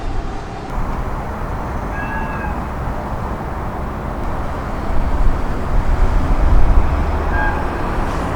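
Train running past with a steady rumble that swells heavier about five seconds in. Faint, brief high squeals, likely from the wheels or brakes, come about two seconds in and again near the end.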